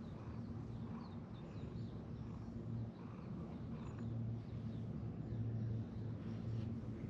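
Cat purring steadily while being stroked, a low rumble that swells and eases in short cycles. Faint bird chirps sound in the background.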